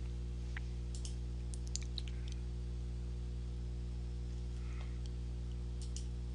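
A few computer mouse clicks, one around a second in, a quick cluster about two seconds in and a pair near the end, over a steady low electrical hum.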